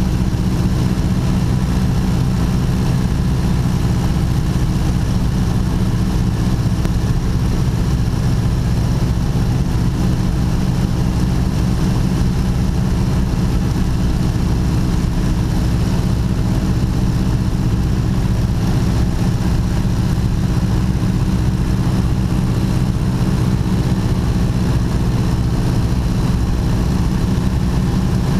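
1929 Ford Tri-Motor's three radial engines and propellers droning steadily in cruise flight, heard from inside the cockpit. The deep, loud drone holds an even pitch and level.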